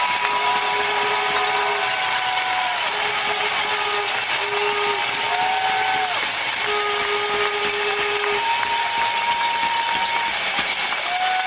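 Large arena crowd cheering and clapping continuously, with long held horn notes at several different pitches sounding on and off over the din.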